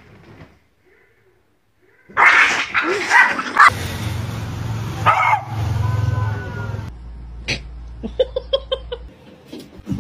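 A dog barking, several sharp loud barks starting about two seconds in.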